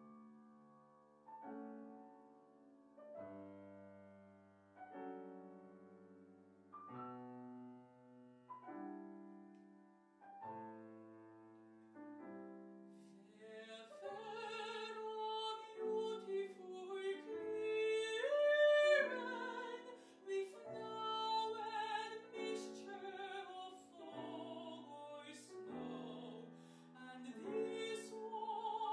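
Grand piano playing an art-song introduction of chords struck about every two seconds; about halfway through, a mezzo-soprano comes in singing over the piano in classical style.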